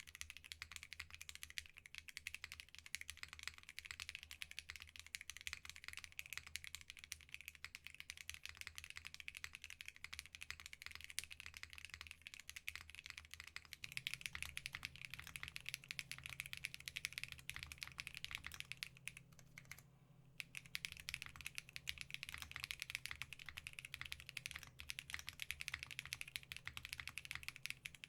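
Fast, continuous typing on a Glare65 65% mechanical keyboard fitted with linear switches (KTT Rose and Geon Black) on a polypropylene full plate: a dense stream of keystroke clacks, with a brief pause a little after two-thirds of the way through.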